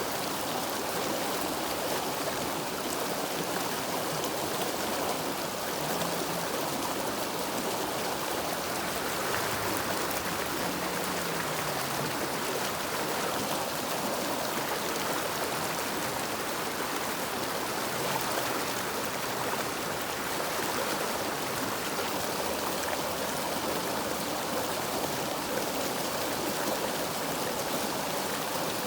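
River water flowing steadily, a constant even rush with no break.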